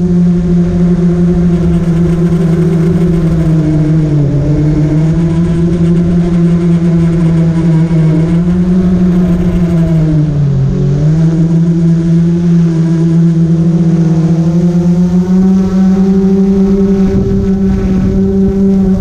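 Drone's electric motors and propellers humming loudly, heard from the camera on board; the pitch dips briefly about four seconds in and again near eleven seconds, then steps up a little around fifteen seconds.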